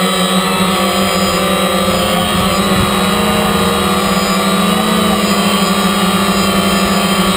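DJI Phantom quadcopter's motors and propellers buzzing steadily in flight, heard loud and close from the GoPro mounted on the drone, the pitch wavering slightly as the motors adjust.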